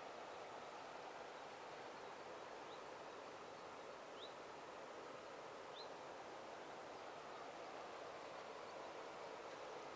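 Faint, steady outdoor background hiss at a riverside, with a few short, high bird chirps in the first half.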